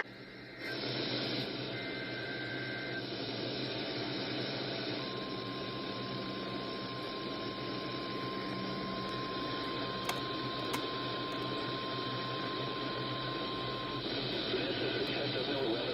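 Steady radio hiss with a brief two-tone data warble about two seconds in, then a single steady tone held for about nine seconds: the 1050 Hz NOAA Weather Radio warning alarm tone sent for the weekly test, faint under the hiss.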